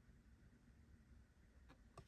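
Near silence: room tone, with two faint clicks near the end.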